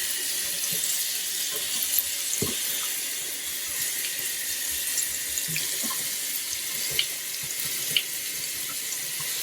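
Warm tap water running steadily while a wet dog is rinsed in the bath, with a few small ticks over the steady hiss.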